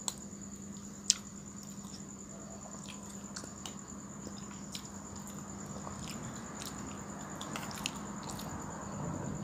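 A person chewing a mouthful of raita (yogurt with onion) close to the microphone: wet, squishy chewing with small clicks scattered through and a sharper click about a second in, growing a little louder in the second half.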